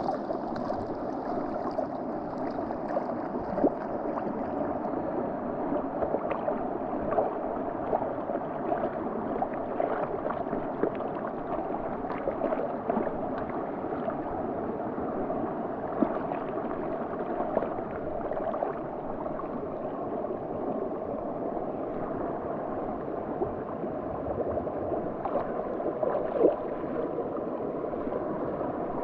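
River water sloshing and gurgling right at the microphone as a swimmer moves through it holding a kayak paddle, with many small splashes throughout.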